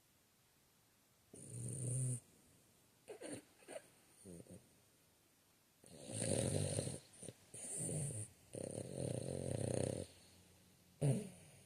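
A sleeping dog snoring in irregular bouts of a second or two, with several short, broken sleep noises in between as it dreams, and a sharp, brief sound near the end.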